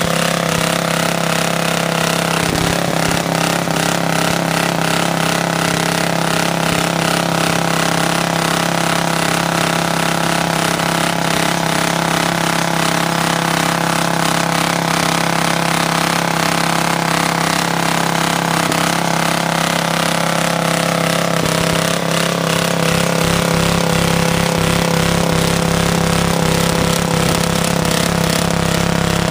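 Homelite rototiller's small air-cooled engine running at high revs under load while its tines dig soil, exhausting through a long custom pipe. The sound is loud and steady, and turns rougher with a low pulsing about three-quarters of the way through.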